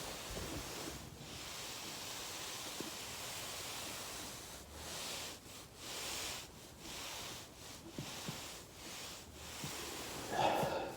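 Foam roller rolling under a person's body: a steady rustling hiss that swells and dips about once a second in the second half, with a few faint pops and a short louder sound near the end.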